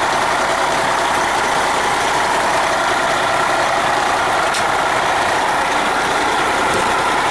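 Detroit Diesel Series 60 straight-six turbo diesel of an MCI 102-DL3 coach idling steadily, heard close up at the open rear engine compartment.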